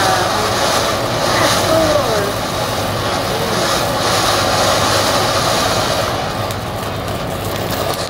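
Ground fountain firework spraying sparks with a steady hiss, easing off a little near the end.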